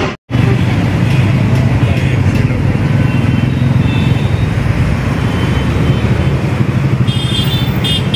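Central Railway air-conditioned EMU suburban train running past: a steady, loud rumble with a low hum, and a few short high-pitched tones near the end.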